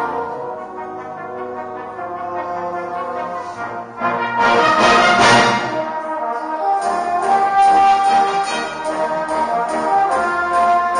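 Brass band playing a medley arrangement: a softer passage swells about four seconds in to a loud full-band climax, then a new section of held chords begins at about seven seconds.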